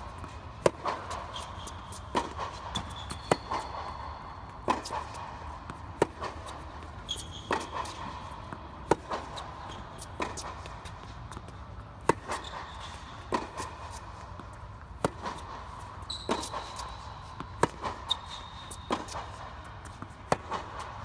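Tennis baseline rally: sharp pops of racket strings striking the ball and the ball bouncing on a hard court, about one to two a second, with short high squeaks of shoes on the court now and then. A steady low hum runs underneath.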